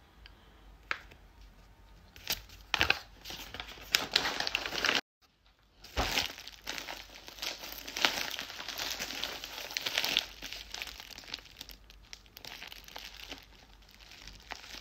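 Packaging crinkling and tearing as a parcel is unwrapped by hand, in uneven rustles and sharp crackles, broken by about a second of dead silence around five seconds in.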